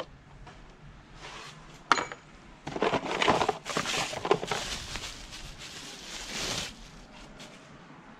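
Small metal parts and tools clinking and rustling as they are handled: one sharp click about two seconds in, then about four seconds of rattling and rustling that dies away.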